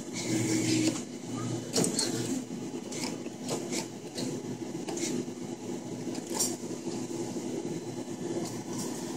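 Arcade machine ambience: a steady electrical hum with scattered clicks and knocks.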